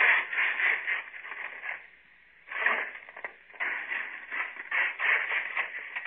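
Radio-drama sound effect of coal being shovelled into a steam locomotive's firebox: irregular crunching, scraping strokes, with a short pause about two seconds in.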